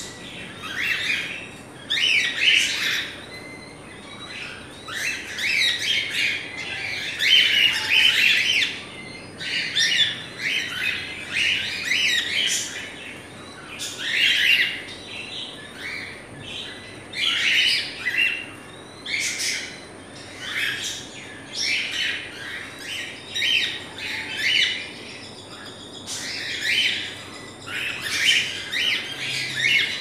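A flock of caged cockatiels calling and chirping, many short calls overlapping one after another with hardly a pause.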